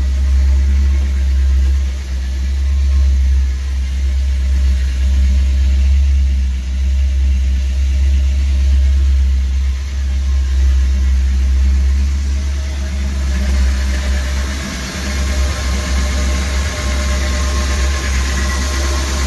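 PCM ZR450 marine V8 in a Nautique wake boat idling steadily out of the water, run on a garden-hose flush supply.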